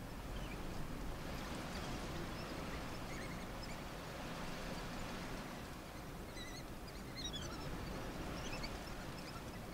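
Steady outdoor background hiss with scattered faint high chirps and twitters, coming in quick runs in the second half.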